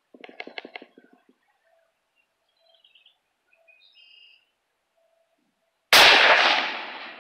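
Winchester Model 1895 lever-action rifle chambered in .30-06 firing one loud shot about six seconds in, the report dying away over a second or so. Before it, a short run of faint clicks and a few faint bird chirps.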